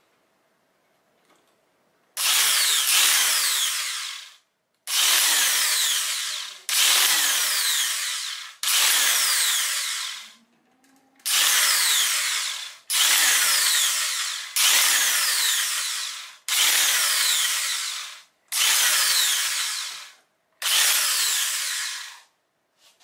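Handheld electric tufting gun punching yarn into hessian backing in ten short runs of about two seconds each. Each run starts abruptly and fades as the motor winds down when the trigger is released.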